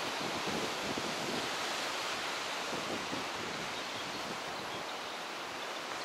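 Steady outdoor wash of wind and sea surf breaking on the rocks at the foot of the cliffs, an even hiss.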